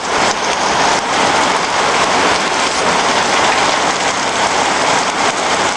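Steady rain falling, an even hiss of drops on the ground.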